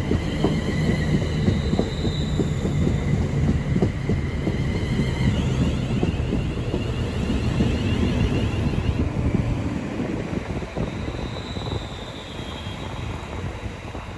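Class 350 Desiro electric multiple unit running into the platform and slowing: a low rumble of wheels on rail with scattered clicks, and a high electric whine from the traction equipment that shifts in pitch. The rumble dies down over the last few seconds as the train slows.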